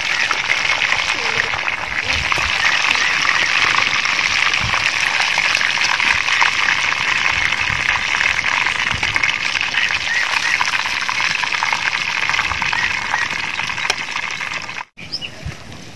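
Hot oil sizzling and crackling steadily in a large pot as breaded chicken pieces deep-fry; it cuts off abruptly near the end.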